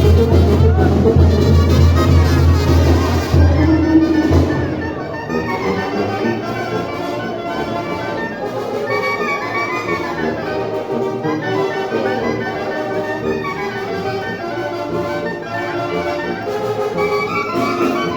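Brass band music, with trumpets and trombones playing a melody. A heavy low bass underneath stops about four seconds in.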